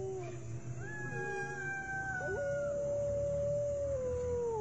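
Eerie drawn-out howling: two or more long held cries overlapping, each sliding down in pitch as it ends, with a new one starting about two seconds in.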